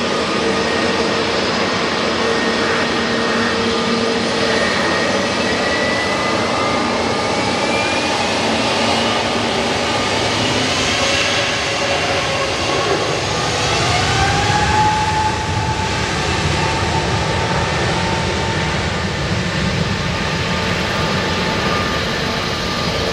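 Jet engines of a Boeing 747-8 freighter passing close on its arrival, a steady loud rush with engine tones sliding in pitch, loudest about two-thirds of the way through.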